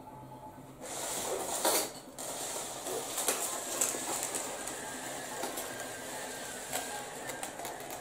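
Cardboard box being handled and slid across a tabletop: a continuous rustling scrape with scattered clicks and knocks, starting about a second in and loudest just under two seconds in.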